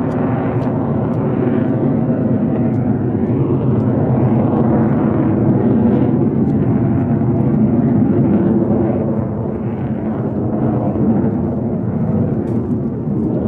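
Lockheed Martin F-22 Raptor in flight, its twin Pratt & Whitney F119 turbofans giving a loud, steady jet rumble that swells a little midway and then eases off slightly.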